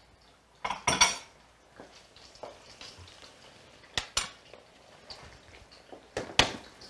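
A metal spoon clinks against a stainless-steel frying pan as fried zucchini slices are lifted out. There is a ringing clatter about a second in, two sharp clinks around four seconds, and another loud clink near the end.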